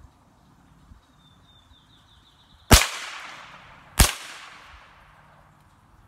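Two shots from a Smith & Wesson M&P 15-22 semi-automatic .22 LR rifle, about a second and a quarter apart, each followed by an echo that fades over about a second.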